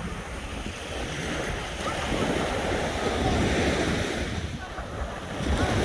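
Sea waves washing onto a shore, the rushing surf swelling and ebbing, with wind buffeting the microphone.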